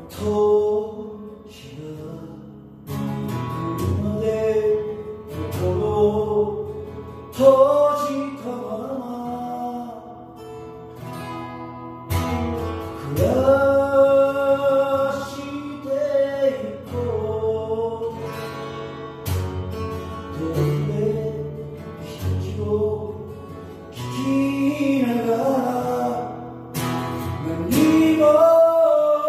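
A man singing in Japanese to his own strummed acoustic guitar, the voice carrying phrases over steady strumming.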